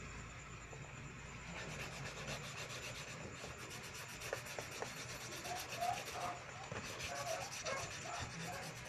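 Sheets of paper rustling and rubbing as they are handled and shifted in the hands, a quiet scratchy friction that picks up about a second and a half in.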